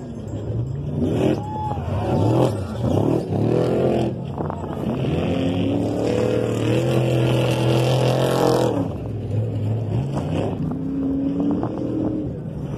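Off-road trophy truck engines revving hard, the pitch climbing and falling as the trucks come up the course. A long high-revving stretch in the middle cuts off abruptly.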